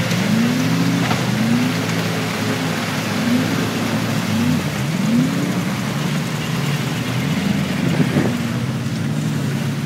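Engine of a tracked Weasel truck running, its pitch rising and falling again and again as the throttle opens and closes.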